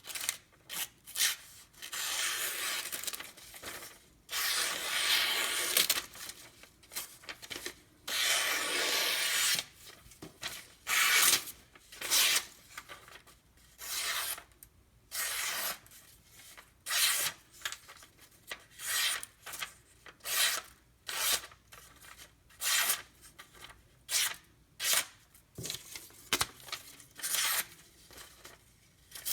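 A freshly sharpened knife edge slicing through paper, stroke after stroke, with a papery tearing hiss: a cut test of the edge. A few long strokes come first, then shorter ones about once a second.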